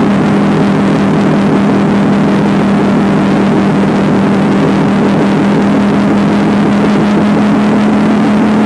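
Motorcycle engine running at a steady cruising speed, one even hum that holds its pitch throughout, with rushing wind noise over it.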